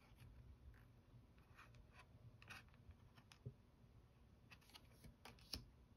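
Near silence, with a few faint ticks and rubs of a tarot card being handled and shifted on top of the deck.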